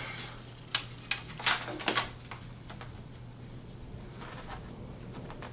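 A handful of sharp clicks and taps from a laptop being handled, bunched in the first two seconds or so, then only a steady low hum.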